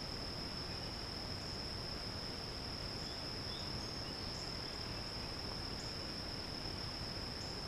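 Insects, likely crickets, trilling in one steady, unbroken high-pitched tone over faint outdoor background hiss.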